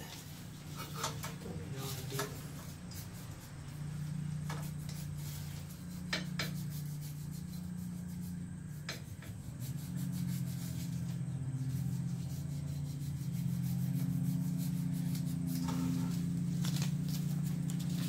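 Paper rubbing and rustling as a gas boiler's flame sensor rod is polished clean with a folded dollar bill, with short scrapes and clicks now and then. A steady low hum runs underneath and gets louder about ten seconds in.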